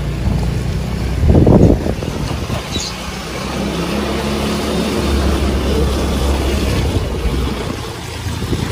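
Motor vehicle engine running steadily, with a brief louder noisy burst about a second and a half in.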